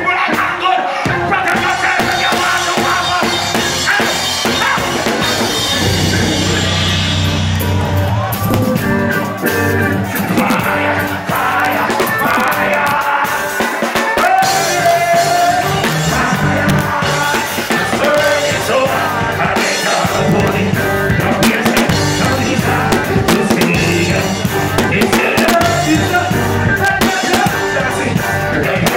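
Live reggae band playing on stage, with drums and a singer's voice over the music; a heavy bass line comes in about six seconds in.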